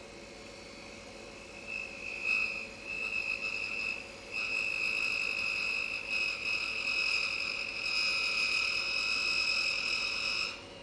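A turning tool cutting down a spinning maple blank on a wood lathe, giving a high-pitched squealing whine. The whine starts about two seconds in, breaks off briefly, then holds steady until it cuts off near the end, over the lathe's faint steady hum.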